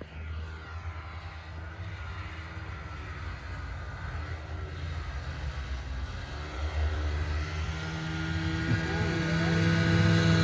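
Snowmobile engine running under way, its pitch wavering up and down with the throttle and growing steadily louder toward the end.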